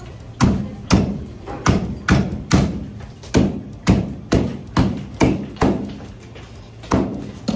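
A knife chopping hard through fish onto a cutting board, a sharp thud about twice a second, with a short pause near the end before a last stroke or two.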